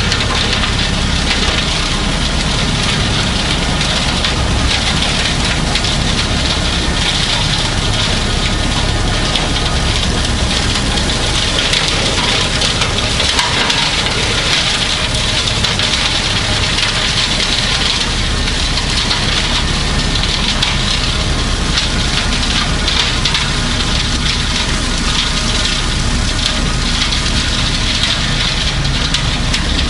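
Kubota B2650 compact diesel tractor running steadily, driving a brush hog rotary cutter.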